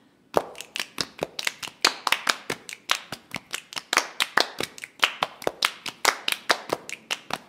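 Several people clapping hands together in a quick, repeating rhythm that starts about a third of a second in: a hand-clap groove opening an a cappella arrangement, before the voices come in.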